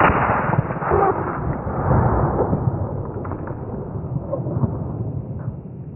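A single shot from a Beretta Silver Pigeon 12-gauge over-and-under shotgun, sudden and loud right at the start, followed by a long low tail that fades slowly over the next several seconds.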